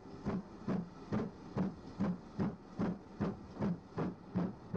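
Steam locomotive, a GWR Castle-class 4-6-0, working a train with steady, even exhaust chuffs of about two and a half a second over a hiss of steam.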